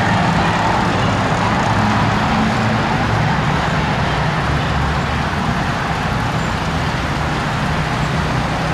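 Street traffic noise: a steady hum of vehicle engines and road noise.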